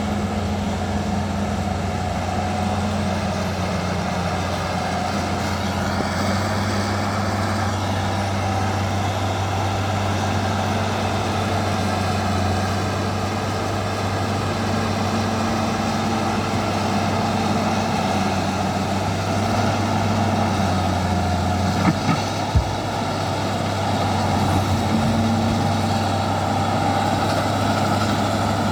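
Bulldozer's diesel engine running steadily under load, its note dipping and rising a little. Two or three short sharp knocks about 22 seconds in.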